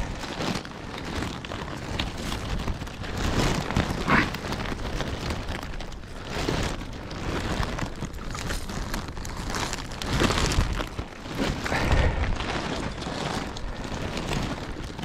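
Rain falling steadily, with gusts of wind rumbling on the microphone several times, loudest about four, ten and twelve seconds in.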